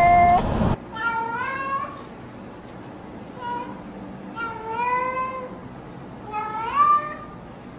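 Domestic cats meowing. One rising meow ends in the first second. A second cat then gives four meows a second or two apart, most of them rising in pitch, one of them short and faint.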